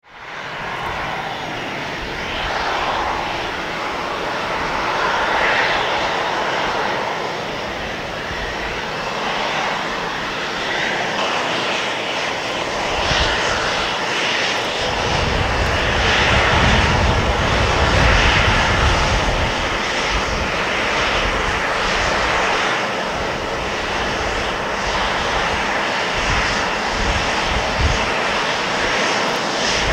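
Boeing 737-700's CFM56-7B turbofan engines at low taxi power as the airliner rolls slowly along the runway: a steady jet whine and rush. A heavier low rumble joins about 13 seconds in.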